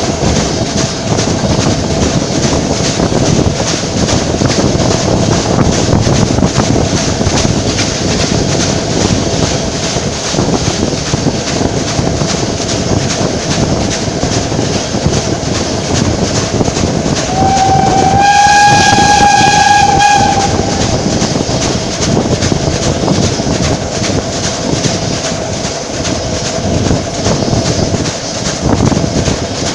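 Train running over the rails with wind rushing past an open carriage window, and about 18 seconds in the Ol49-59 steam locomotive's whistle sounds one long blast of about three seconds, its pitch rising slightly at the start. The blast is a warning ahead of a level crossing.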